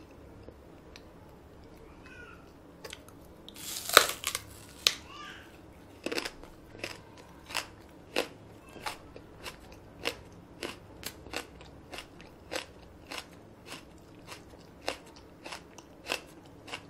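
Raw green onion stalk bitten off with a loud crunch about four seconds in, then chewed steadily, crunching a little under twice a second.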